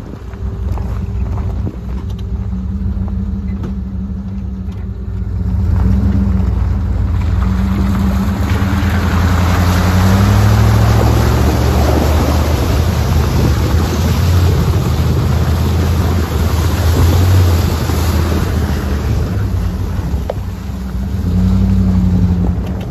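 4x4 off-road vehicle's engine running under load as it wades through lake water. A rush of splashing water from its bow wave builds from about six seconds in and eases off near the end as the vehicle climbs out.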